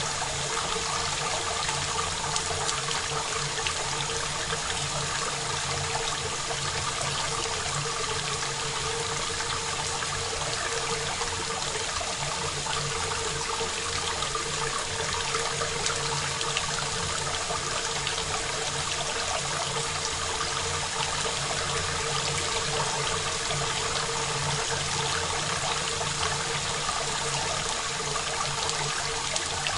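Steady rain falling, an even, unbroken hiss of drops that stays the same throughout, recorded dry without reverb.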